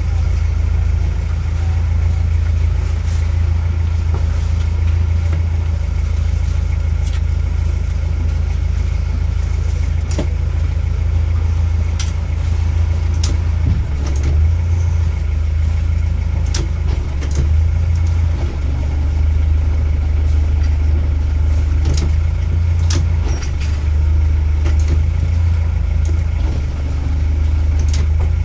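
Kent 28 motor cruiser's engine running steadily at low revs while the boat is manoeuvred slowly astern out of its berth, the pitch of its hum shifting a little from about halfway through. A few sharp clicks or knocks sound over it.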